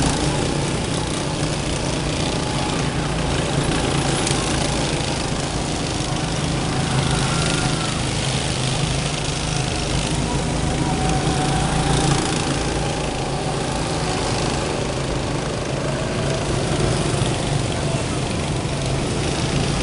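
Several go-kart engines running as the karts lap the track, a steady drone with one kart passing close by.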